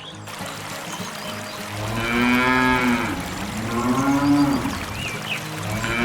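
Cattle mooing: two long calls, one about two seconds in and another about four seconds in, with a third starting near the end. Faint bird chirps sound in between.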